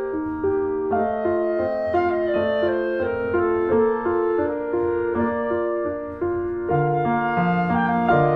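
Instrumental background music with an evenly paced melody moving note by note; lower notes join about seven seconds in.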